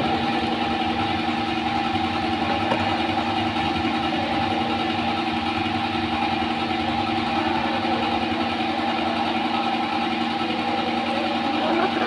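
Steady hum of workshop machinery running, holding a few fixed pitches without change.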